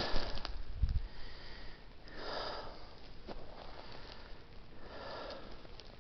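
A hiker's heavy breathing, two long breaths about two and five seconds in, after a few footsteps in the first second.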